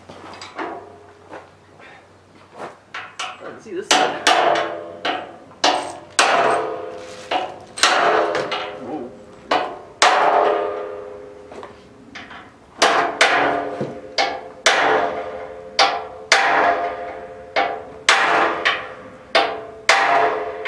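Hammer blows on steel, struck one after another about once a second, each leaving a metallic ring: bolts being tapped into a car frame. The blows are light at first and grow much harder about four seconds in.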